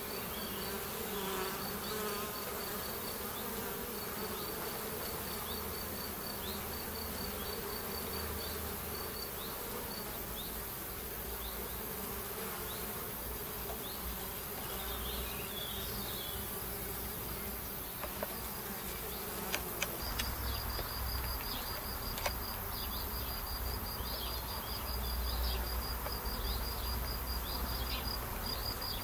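Honeybees buzzing steadily around the entrance of a Warré hive as they fly in and out, with a high, rapidly pulsed chirping trill sounding off and on over the buzz.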